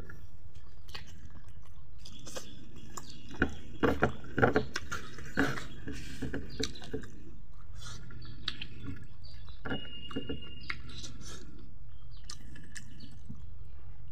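Close-miked chewing and wet mouth smacks of a person eating by hand, with a cluster of sharp clicks about four to five seconds in. A low steady hum runs underneath.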